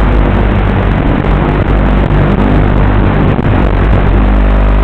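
Electric motor and propeller of a small FPV flying wing running, heard with rushing wind noise through the onboard camera. About four seconds in, as the wing comes down in the leaves, the rough noise gives way to a steady, even hum.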